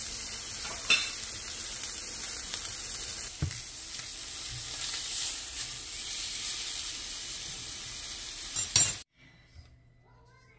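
Steak searing in a hot frying pan, sizzling steadily. Near the end a short sharp clatter, after which the sound cuts off to near silence.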